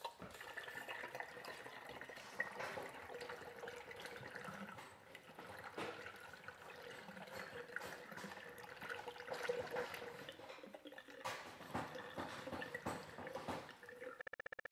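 Engine coolant pouring steadily from a plastic jug into a funnel in a car's cooling-system filler, filling the system.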